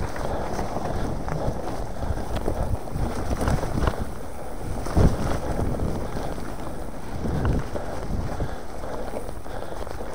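Orbea Alma mountain bike rolling over a trail, with wind buffeting the action camera's microphone, a steady rumble of tyres and frame rattle, and scattered knocks from bumps, the hardest about five seconds in.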